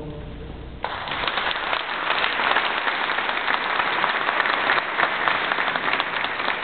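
Audience applause breaking out suddenly about a second in and continuing steadily, just after the choir's last chord has died away.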